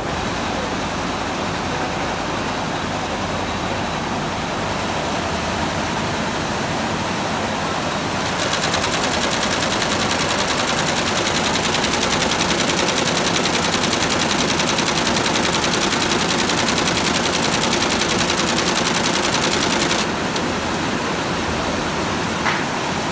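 Computerized embroidery machine stitching: a rapid, even mechanical rattle. It grows louder and brighter from about eight seconds in until about twenty seconds in, and a short click comes near the end.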